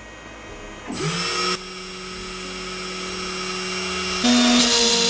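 X-Carve CNC spindle motor spinning up with a rising whine about a second in, then running at a steady pitch and slowly getting louder. About four seconds in, it steps up to a louder, higher sound as the machine gets going on the carve.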